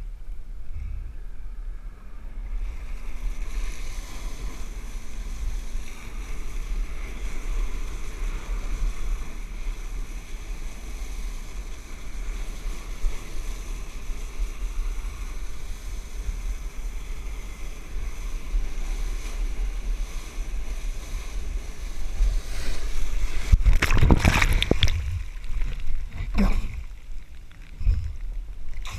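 Flyboard water jets blasting onto the sea surface, a steady rushing hiss of spray with wind on the microphone. The rush builds about two seconds in, and a louder bout of splashing comes near the end.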